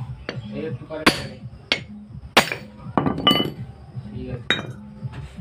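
Hammer blows on the steel yoke of a truck propeller shaft's universal joint while its cross is being changed: about six sharp metallic clinks at irregular intervals, each with a short ring.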